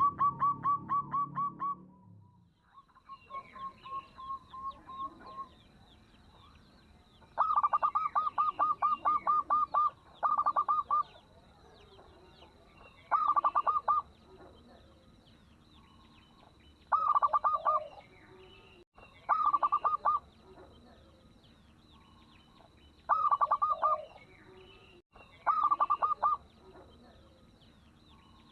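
Local zebra dove (perkutut) cooing in short phrases of rapid staccato notes, about eight phrases a few seconds apart, with a thin steady high tone behind. It is a small-voiced lure call meant to set other zebra doves singing.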